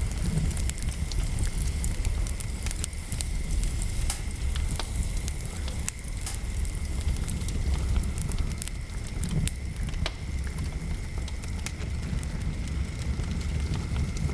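Wood fire crackling, with frequent irregular sharp pops over a steady low rumble.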